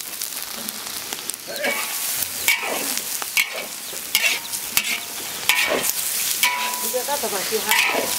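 Chopped pig lung sizzling in a large wok just after a splash of cooking wine, while a metal spatula stirs and scrapes the pan about once a second, some strokes ringing briefly.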